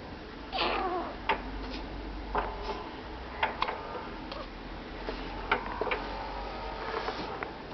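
A baby hiccupping: short sharp hics at uneven intervals of roughly a second, with a brief falling vocal sound less than a second in.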